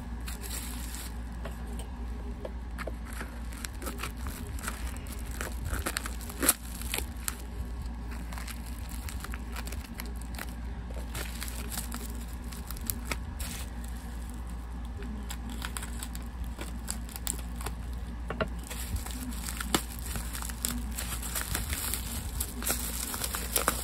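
Wrapping around a parcel being cut and torn open by hand: irregular crinkling and crackling with scattered sharp clicks, over a steady low hum.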